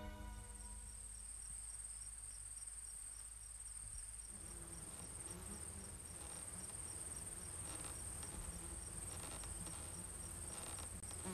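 Faint crickets chirping: a steady high trill and, beneath it, a slower chirp pulsing about four times a second. Music fades out at the very start.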